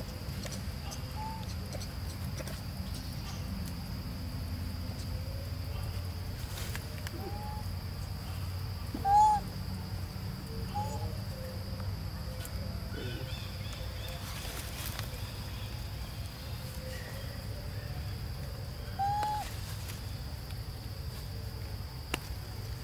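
A few short, clear animal calls, each rising then falling in pitch, spaced irregularly, the loudest about nine seconds in and another near nineteen seconds, over a steady high-pitched whine.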